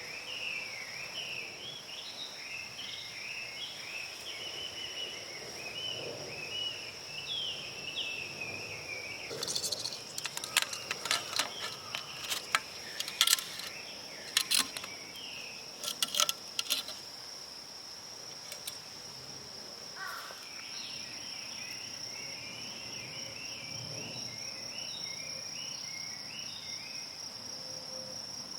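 Insects shrilling in a steady high-pitched drone, with a rapid chirping call over it at first and again later on. About ten seconds in, a run of sharp clicks and knocks lasts around seven seconds and is the loudest sound.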